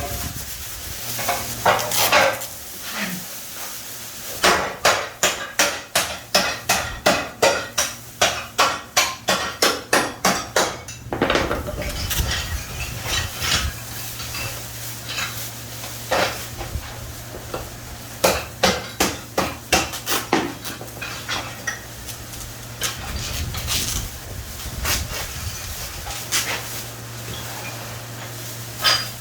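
Hand tile work: runs of sharp tapping knocks, about two a second, with scraping between them.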